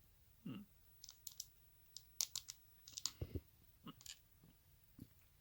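Faint, scattered small clicks and taps of metal lock parts being handled as a pin and copper spring are loaded into a Yale pin-tumbler lock, with a couple of duller knocks.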